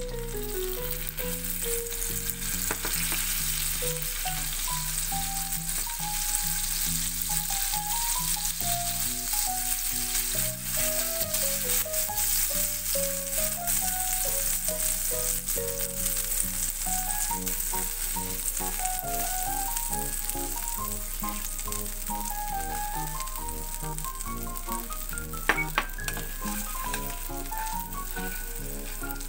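Pieces of mochi shallow-frying in melted butter, a steady sizzle as the surfaces turn crisp, over background music with a plucked-sounding melody. Two sharp clicks sound close together near the end.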